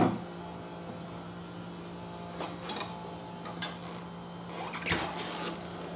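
Steel wheel and manual tire-changer parts being handled: a metal clank at the start, a few light knocks, then a brief scraping rustle with another knock near the end, over a steady low hum.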